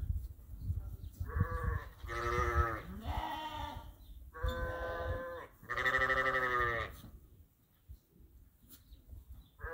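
Sheep bleating: five calls in quick succession over about six seconds, then a quiet stretch. A low rumbling noise lies under the first few bleats.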